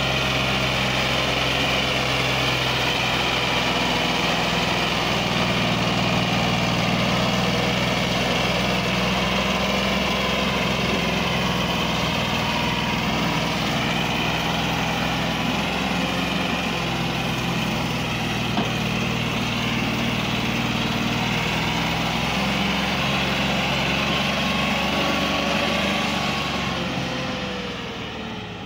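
Massey Ferguson 260 tractor's three-cylinder diesel engine running hard, labouring under the weight of a heavily loaded sugarcane trolley. The sound is steady, then drops in pitch and fades near the end as the tractor pulls away.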